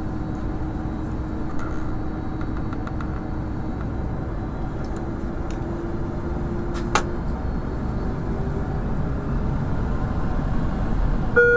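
Airliner cabin noise while taxiing: a steady rush of engine and air noise with a steady whine that rises slightly in pitch partway through, growing a little louder toward the end. A single sharp click about two thirds of the way in, and a short cabin chime right at the end.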